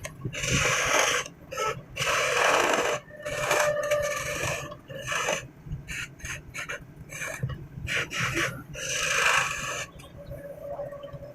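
Repeated rasping strokes on wood, each about half a second to a second long and spaced irregularly, with small knocks in between.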